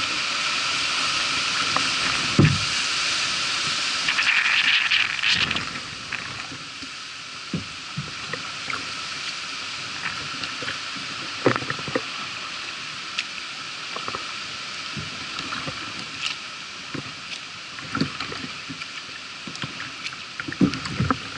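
Kayak being paddled through floodwater: water splashing and dripping from the paddle, with a steady hiss for the first five seconds or so. After that come irregular small knocks and splashes.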